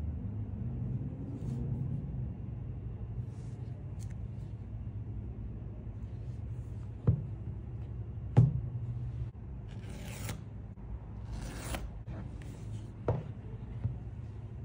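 Gloved hands handling a cardboard iPhone 14 box on a table: a few sharp knocks as the box is set down and turned over, and two short scraping sounds of about half a second each, over a steady low hum.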